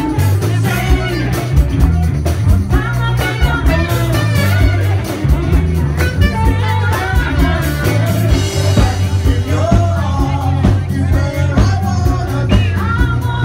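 Live band playing with a steady drum beat and a heavy bass line, a saxophone carrying the melody on top.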